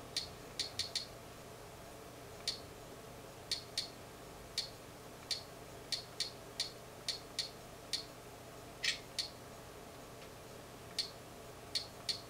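Short, sharp clicks at an irregular pace, about twenty in all, some coming in quick runs of two to four, over a faint steady hum.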